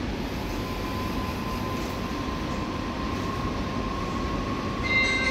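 Steady rumble of a Seoul Subway Line 4 train approaching through the station tunnel, with a faint steady whine above it. Near the end a chime of bell-like notes begins and the overall level rises.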